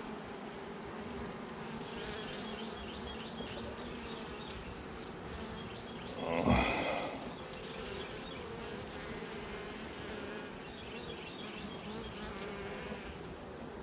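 Honey bees buzzing steadily around an open hive, with one brief louder noise about halfway through.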